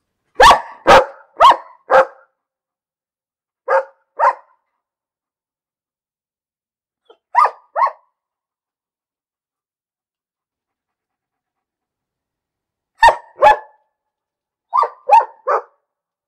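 A dog barking in separate groups with silence between: four quick barks, then two pairs, a long pause, another pair and three more near the end.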